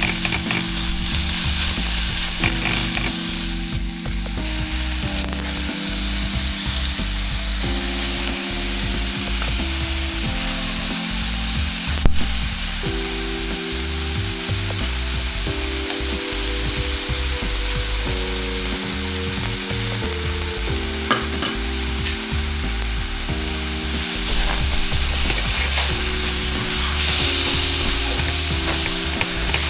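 Steak sizzling in a pan over background music of held chords that change every second or two, with one sharp click about twelve seconds in.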